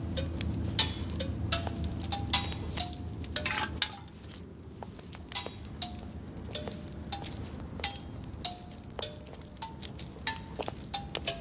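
Sharp metallic clinks in a loose percussive rhythm, many ringing briefly with a short pitched note. A low hum runs under the first four seconds, then drops away.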